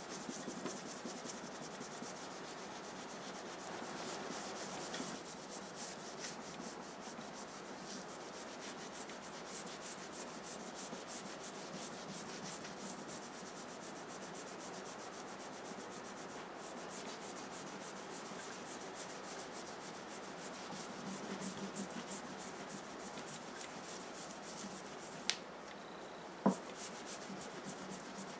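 Microfibre cloth being rubbed back and forth along a stainless steel kitchen knife blade to clean it: a steady scrubbing hiss, interrupted by two sharp clicks about a second apart near the end.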